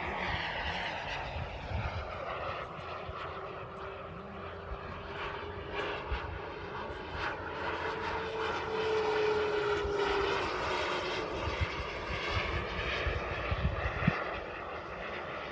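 Behotec 220 turbine of a Tomahawk Futura 2.5 model jet in flight: a steady jet roar with a whine in it that rises a little, peaks and then falls away about ten seconds in.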